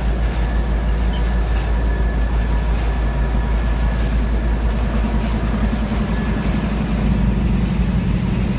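BNSF GP39-2 and B40-8W diesel locomotives passing slowly, their engines running with a steady low rumble. The engine sound grows louder in the second half as the trailing unit comes alongside.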